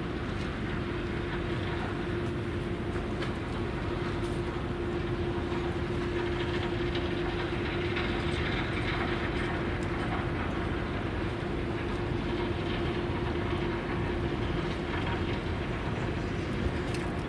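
Steady industrial machinery hum: a constant mid-pitched drone over an even rumbling noise.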